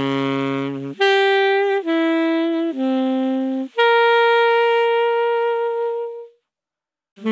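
Selmer Mark VI saxophone playing a short improvised phrase: a low note, three shorter notes stepping down, then a long higher note held for about two and a half seconds before stopping.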